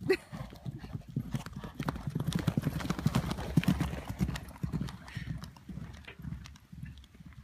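Horse hoofbeats, a quick run of strikes on the ground that is loudest in the middle and thins out near the end.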